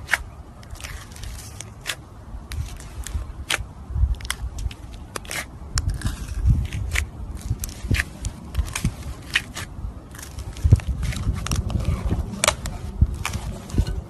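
Slime being squished and worked by hand: soft low squelching with many irregular sharp pops and crackles throughout.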